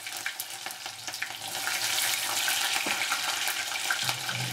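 Small onions (shallots) and curry leaves frying in hot oil in a clay pot: a steady sizzle with scattered crackles and pops.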